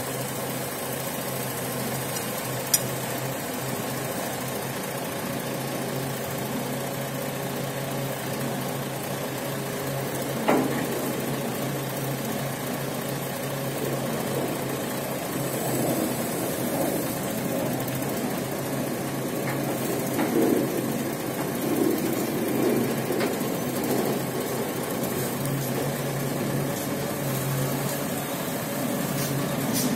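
Rough-terrain crane's diesel engine idling steadily, running a little harder from about halfway through. A sharp click a few seconds in and a knock about a third of the way through.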